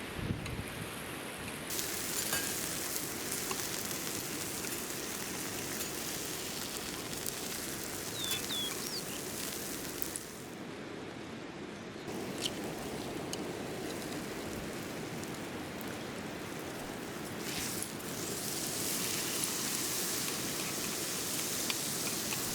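Outdoor ambience: a steady rushing noise with faint rustles and a couple of short high chirps about eight seconds in. The noise shifts abruptly several times, as if from one clip to the next.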